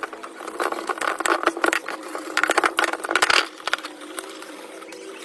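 A quick run of clicks and knocks, as from tools and parts being handled during a ceiling fan repair, over a steady hum. The knocking thins out about three and a half seconds in.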